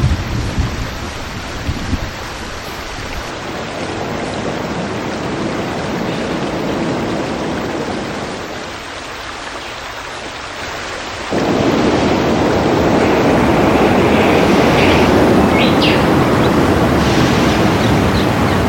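Rain with low rumbles of thunder. About eleven seconds in it cuts suddenly to a louder, steady rush of noise, with a few short high chirps near the end.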